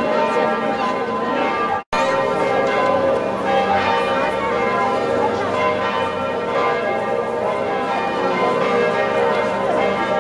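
Church bells pealing, many overlapping steady ringing tones; the sound cuts out for a moment about two seconds in.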